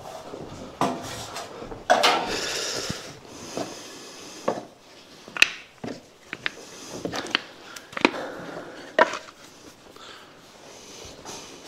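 Scattered handling sounds in a small room: sharp clicks and light knocks, with a rustling hiss of about a second starting about two seconds in.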